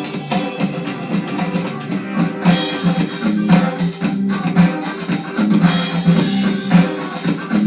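Music with guitar and drums playing through a television's built-in speakers, thin with little deep bass.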